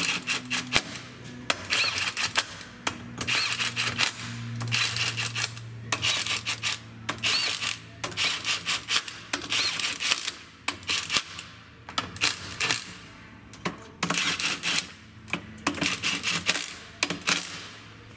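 Cordless impact driver hammering in short rattling bursts, one after another, as it runs the valve body bolts into the transmission case.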